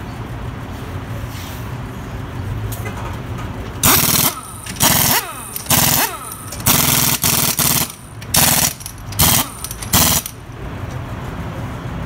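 Pneumatic impact wrench rattling in a series of short bursts, about eight of them, starting about four seconds in, as the wheel's lug nuts are run down and tightened.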